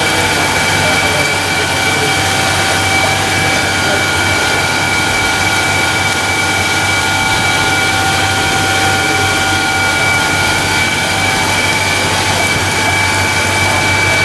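Ozone and air-bubbling vegetable washing machine running: a loud, steady drone with a low hum and a steady high whine.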